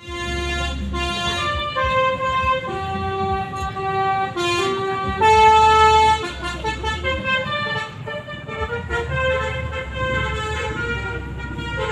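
Telolet musical bus horn playing a tune: a run of loud held horn notes stepping up and down in pitch, over a low rumble.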